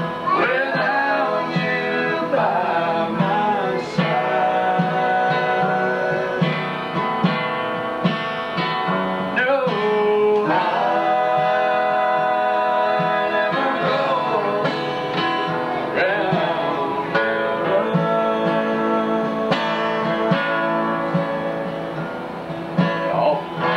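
Acoustic guitar playing a slow country song, with strummed chords under a held, gliding melody line.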